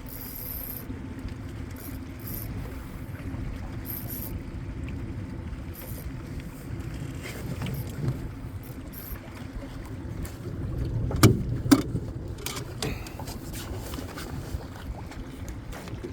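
Steady low rumble of wind and water around a small aluminum fishing boat, with two sharp knocks in quick succession about two-thirds of the way through.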